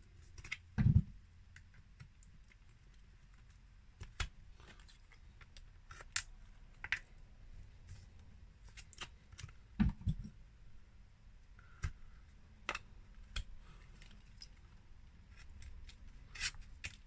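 Rummaging through small tools and parts: scattered clicks and clatters of small plastic and metal pieces being picked up and set down, with a louder knock about a second in and another near ten seconds.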